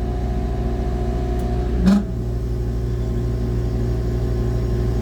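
AAON rooftop HVAC unit running steadily, a constant machine hum from its condenser fan and motor with several fixed low tones. There is a brief thump about two seconds in.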